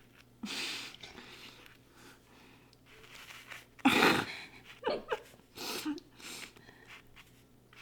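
Short breathy vocal bursts from a person, the loudest about four seconds in, followed by a few brief voiced sounds.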